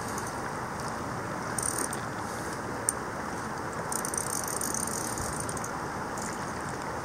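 Fly reel's click-and-pawl ratchet buzzing in two spells, briefly about a second and a half in and again for over a second from about four seconds, while an Atlantic salmon is on the line. A sharp single click comes just before the second spell, over the steady rush of river water.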